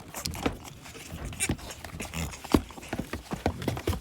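Goat kids nursing and jostling at a doe whose udder has run dry: scattered short knocks and clicks.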